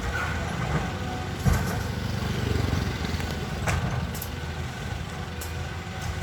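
Caterpillar excavator's diesel engine running steadily, with a sharp knock about one and a half seconds in and a few fainter clicks after it.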